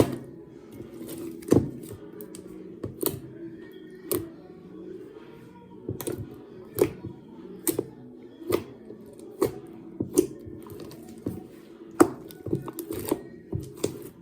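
Slime being squeezed and pressed by hand, giving sharp clicking pops at an uneven pace of one or two a second.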